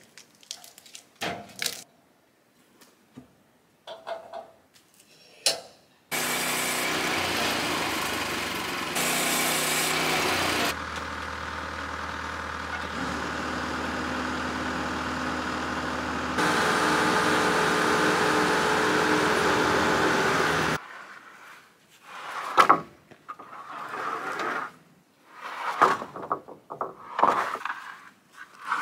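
A few wooden knocks and thumps as a log is handled. Then a Bobcat skid-steer loader's engine runs steadily for about fifteen seconds, its level jumping abruptly several times. Near the end come sharp wooden clatters of sawn boards being dropped and stacked.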